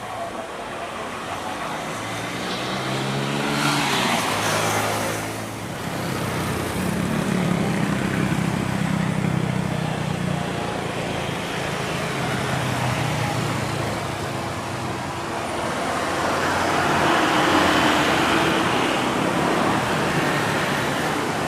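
Jet airliner engines passing near the runway: a drone that falls in pitch about three to five seconds in, steady engine noise after it, and a rushing swell again near the end.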